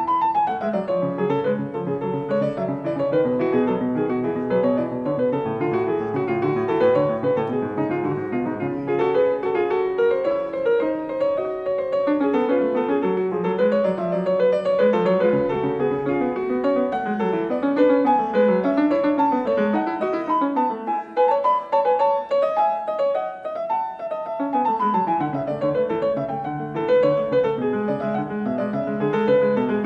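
Piano music, with flowing runs of notes rising and falling throughout.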